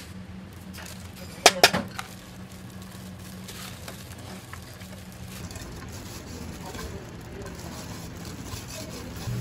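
Gloved hands tossing and mixing seasoned julienned radish and bean sprouts in a metal pan, with soft rustling and scraping. Two sharp metallic clinks come about a second and a half in, over a steady low hum.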